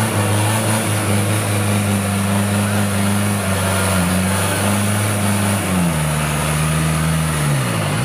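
Diesel engine of an off-road Toyota pickup held at high revs under heavy load as the truck churns in deep mud and water, puffing black smoke. Near the end the revs drop sharply and then climb again.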